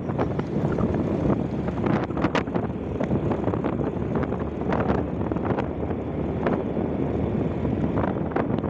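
Motorcycle riding along a dirt road: wind buffeting the microphone over the engine and tyre noise, with scattered clicks and knocks from the rough surface.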